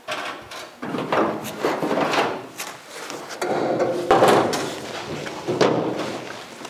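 Loose steel rear body section of a 1956 Chrysler Windsor being handled and set onto the car: a run of irregular clunks, scrapes and rattles of sheet metal on metal, the loudest a little past the middle.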